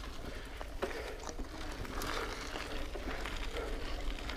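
Mountain bike rolling along a dirt singletrack trail: faint tyre noise with scattered small clicks and rattles from the bike.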